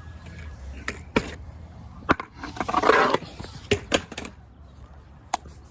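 Skateboard being ridden: a string of sharp clacks and knocks, with a loud scraping slide about halfway through.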